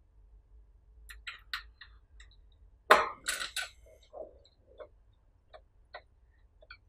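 Small metallic clicks and taps of a screwdriver driving screws to fix a hanger loop onto an aluminium LED grow-light bar, with one sharper knock about three seconds in.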